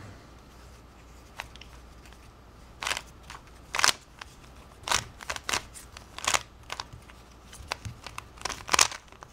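Plastic windmill cube puzzle being turned by hand: a run of short clicking, scraping layer turns. It is quiet for the first few seconds, then the turns come in quick clusters, loudest near the end.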